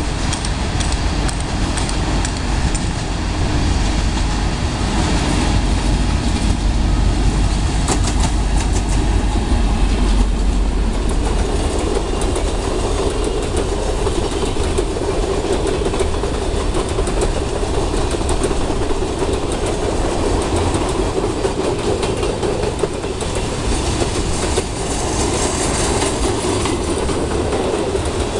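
Diesel freight train passing close by, an EMD G22CU locomotive hauling a string of open and flat freight wagons. The wheels clatter over the rail joints with a steady rumble.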